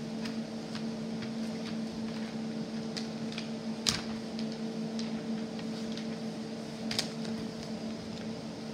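Steady low electrical hum over faint room noise, broken by a few sharp clicks; the loudest click comes about four seconds in and another about seven seconds in.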